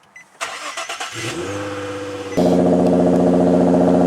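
Car engine starting and then running steadily; about two and a half seconds in it suddenly becomes much louder and steady, then cuts off abruptly.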